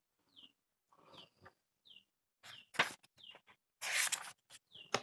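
Paperback book pages being handled and turned, with a sharp paper snap a little before three seconds in and a louder rustle of pages about a second later. A bird chirps repeatedly in the background, each chirp a short falling note.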